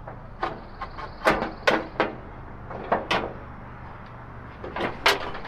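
Metal clanks and clicks of a folding camp stove being packed up: its hinged side wind panels and lid are swung in by hand, about eight sharp knocks spread out, the loudest near the end.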